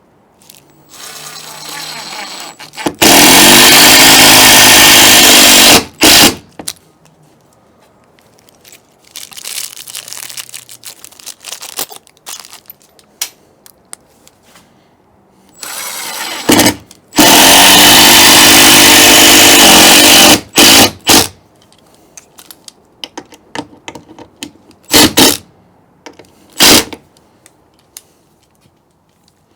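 Power drill running in two long, loud bursts of about three seconds each, driving long screws through the deadbolt strike into the door frame's studs, with a few short knocks and clicks between.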